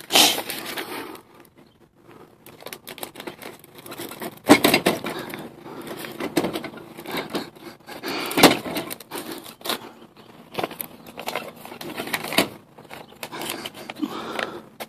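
Paper mail and envelopes rustling and scraping as they are pushed through a metal door mail slot, with irregular knocks and clacks from the slot's flap, the loudest at the start, about four seconds in and about eight seconds in.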